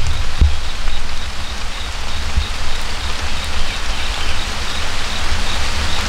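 Wind buffeting the microphone outdoors: an uneven low rumble over a steady hiss, with a faint thin high tone held in the background.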